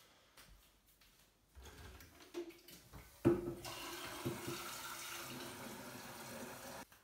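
A kitchen tap runs water into an electric kettle for about three seconds and then shuts off suddenly. Before this there are a few light knocks and a sharper clunk as the kettle is handled at the sink.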